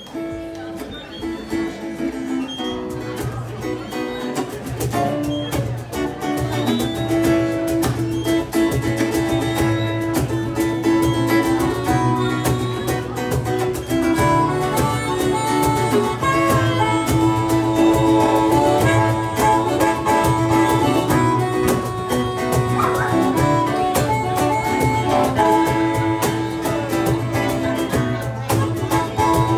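Live band playing a song: acoustic guitars strummed over a drum kit, with a sustained melody line on top. The music builds over the first few seconds and then holds steady.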